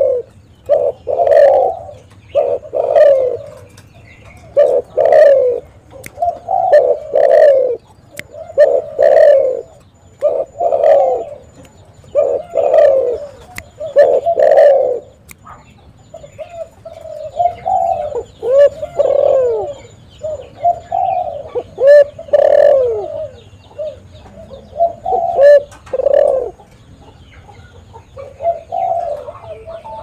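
Spotted dove cooing over and over, its low hoots coming about once a second, then in quicker runs, with a short lull near the end before it starts again.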